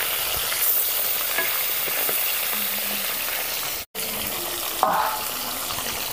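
Fish pieces frying in hot mustard oil in a kadhai, a steady sizzle with a few faint clicks. The sound cuts out for an instant about four seconds in, and a sharp knock follows just after.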